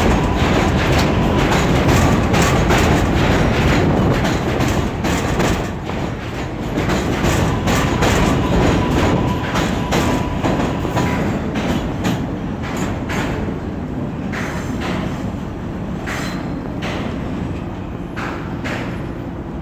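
New York City Subway R188 train departing on elevated track, its wheels clacking rapidly over the rail joints as the cars roll past. The clacking thins out and grows a little quieter in the last third as the train pulls away.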